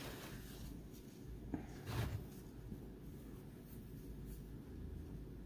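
Faint handling noises, a light rustle and a soft knock about two seconds in, over a low room hum.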